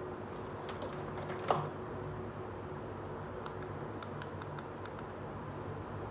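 Small plastic toy pieces handled: one sharp knock about a second and a half in, then a scatter of light clicks as a plastic butterfly-shaped toy purse is turned in the hands, over a steady low hum.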